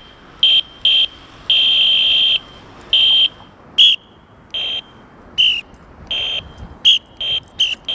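Pittnal II electronic whistle sounding its plastic echo-whistle tone: a shrill, steady, high beep-like whistle in about five blasts, one of them long. From about four seconds in, its flat blasts alternate with blasts on a real mouth-blown plastic whistle that bend in pitch at their ends.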